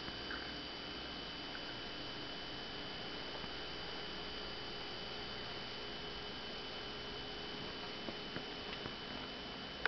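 Steady background hum and hiss with no distinct event, and a few faint soft clicks near the end.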